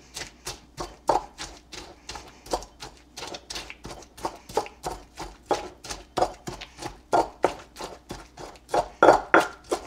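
Pestle pounding in a mortar, rapid irregular knocks several times a second, crushing onion and pepper with salt into a paste for guacamole.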